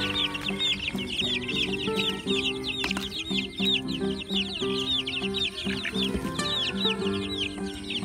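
A brood of Rhode Island Red and Black Australorp chicks peeping without pause: a fast run of short, high peeps, about four or five a second. Background music with held notes plays underneath.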